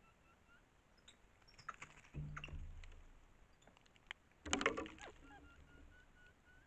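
Capuchin monkeys moving in dry leaf litter: scattered crackles and two short spells of rustling, about two and four and a half seconds in. A bird calls a repeated high note in the background.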